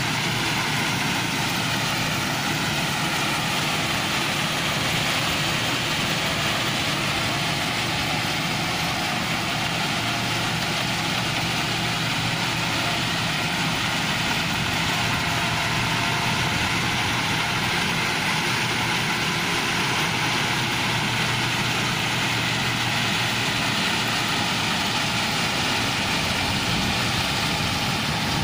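A New Holland crawler combine harvester's diesel engine and threshing machinery running steadily as it harvests rice, a continuous mechanical drone with no change in level.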